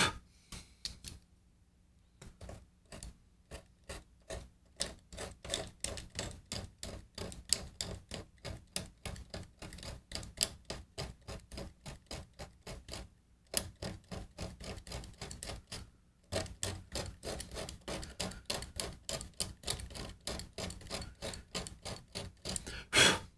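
Small hand blade scraping old glue out of the loose binding channel on a 1956 Martin acoustic guitar's body, in short quick strokes of about three a second, with brief pauses about a second in and twice midway.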